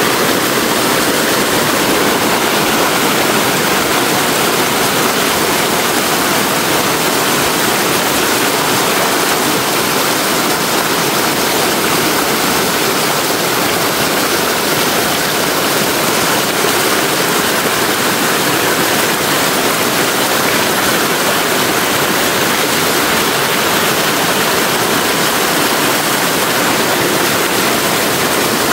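Running stream water: a steady, unbroken rush of flowing water, loud and close.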